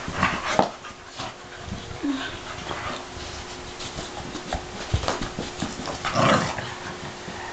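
Two dogs, a Puggle and a Dachshund–German shepherd mix, playing over a plush ball: a string of short, noisy dog sounds and scuffles, the loudest about six seconds in.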